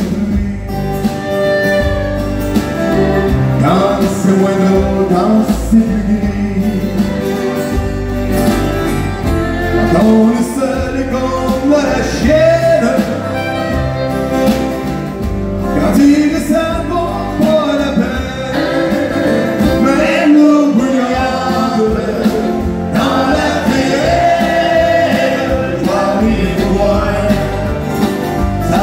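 Live country song: a man singing to strummed acoustic guitars, two guitars accompanying him.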